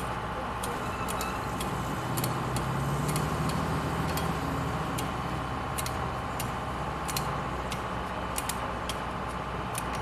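A truck's engine running steadily as a low hum, with scattered sharp clicks over it.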